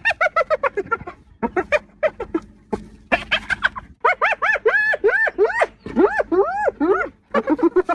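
Hyena giggling: a fast run of short, high, chattering calls, each rising and falling in pitch, with a stretch of longer arched calls in the middle.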